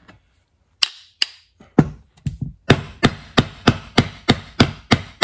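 Brass hammer tapping a mower deck spindle pulley to drive it down onto the keyed shaft. A few scattered taps come first, then a steady run of about three taps a second.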